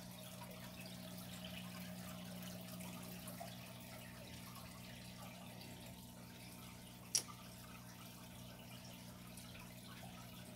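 Aquarium filter running faintly: a steady low hum with a light trickle and drip of water. There is one sharp click about seven seconds in.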